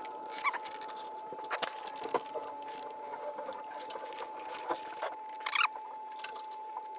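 Light clicks and taps of hand tools and fingers working at a stuck spin-on oil filter under a pickup. A few short squeaks come through, one about half a second in and another near five and a half seconds, over a faint steady high whine.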